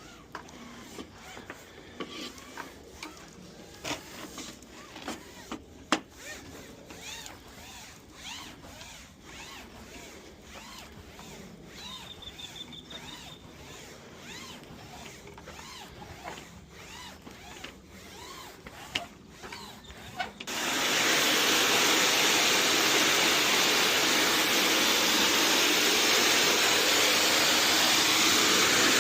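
Brush scrubbing an awning sun screen, with scattered clicks and knocks. About two-thirds of the way in, a loud steady blower starts up, drying the screen.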